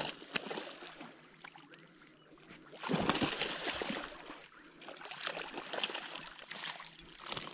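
Water splashing in irregular bursts as a hooked pike is played in on a spinning rod. The longest splash comes about three seconds in.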